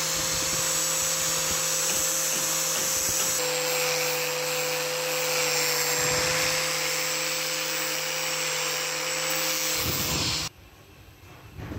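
Electric angle grinder with a sanding disc on a backing pad, running at steady speed with a constant whine and hiss while sanding a wooden strip. It stops abruptly near the end.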